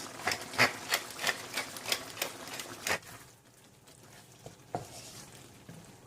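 Black pepper mill being twisted over the pan, giving a run of regular grinding clicks about three a second. The clicks stop about three seconds in, and a few single knocks follow.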